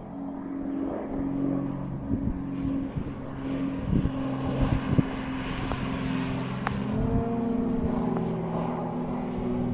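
Electric RC plane in flight: its SK3 5055 brushless motor turning a 17x8 propeller gives a steady, even-pitched drone. A few short knocks come in around the middle.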